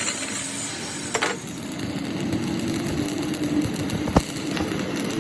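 A machine runs steadily with a low hum. There is a click about a second in and a single sharp knock near the end.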